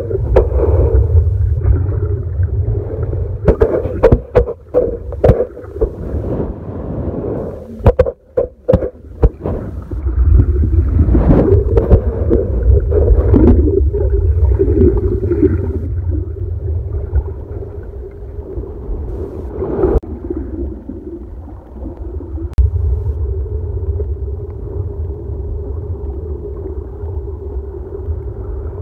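Muffled underwater surf recorded by a phone's microphone as the phone is tossed around by the waves: a steady low rumble of moving water, with a run of knocks and scrapes in the first ten seconds or so as it tumbles against the sand.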